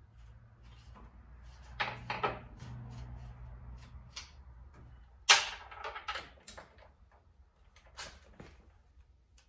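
Metal clicks and clinks of a 9/16 wrench working loose the bolts on top of a car's front strut tower, coming in irregular groups, with a sharp metallic clink about five seconds in that is the loudest.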